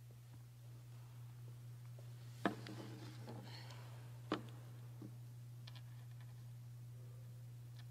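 Papers being set down and handled on a lectern, picked up by its microphone: two sharp knocks about two and a half and four and a half seconds in with paper rustling between them and a few faint ticks after. A steady low electrical hum runs underneath.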